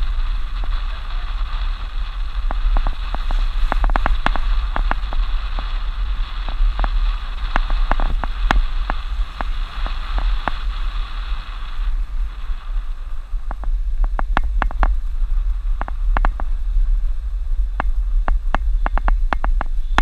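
Suzuki Jimny driving over a rough dirt road, heard from a camera mounted outside on its body: a steady low rumble with many sharp knocks and clicks as it goes over bumps and ruts. A steady higher hum runs beneath it and stops suddenly a little past halfway.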